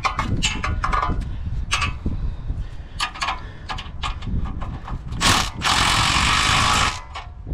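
Cordless impact wrench with a socket extension driving the nuts on a catalytic converter's exhaust flange. A few short clicks and brief bursts come first, then one continuous run of about a second and a half near the end.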